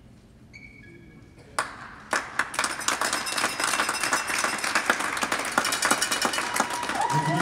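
A short chime of a few clear notes about half a second in, then a crowd applauding, starting sharply about a second and a half in and growing louder. Music starts up right at the end.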